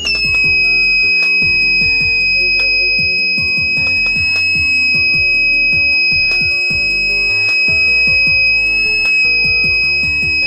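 Alarm buzzer of an ESP32 flame-sensor fire alarm sounding one continuous high-pitched tone, the signal that the sensor has detected a flame. Background music plays underneath.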